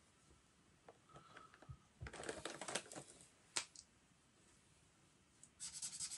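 Plastic marker pens clicking and clattering as a hand picks through a pile of them, with one sharp click about three and a half seconds in, then a marker scratching across sketchbook paper near the end.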